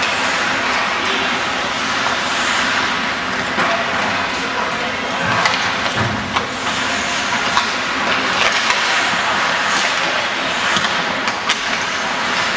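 Ice hockey rink during play: a steady noisy wash of skates scraping the ice and arena noise, with several sharp clacks of sticks and puck.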